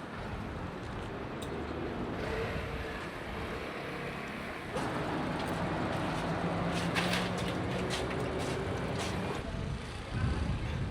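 Road traffic: a motor vehicle's engine hum passing close by, louder from about five seconds in and dropping away near nine and a half seconds.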